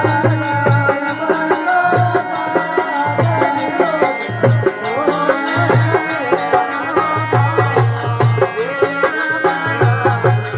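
Rajasthani devotional folk music (a Marwari bhajan): a wavering melody line over a steady hand-drum beat, with rapid jingling percussion on top.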